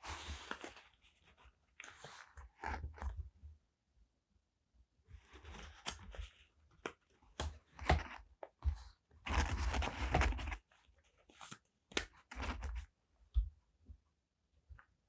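Paper and stickers handled close to the microphone: uneven bursts of paper rustling, with small sharp taps and clicks on the desk between them.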